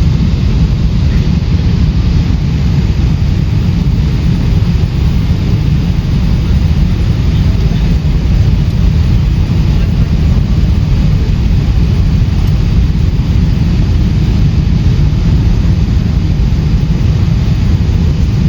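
Steady, loud low rumble of a Boeing 777 jet airliner's engines and rushing air, heard from inside the cabin.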